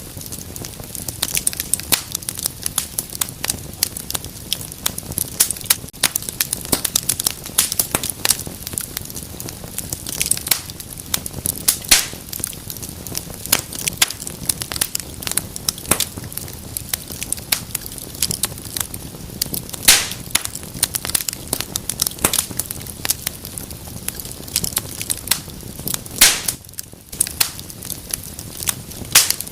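Wood fire burning in a fireplace, crackling continuously with many irregular sharp pops over a low steady rumble of flame; a few louder snaps stand out, about twelve, twenty and twenty-six seconds in.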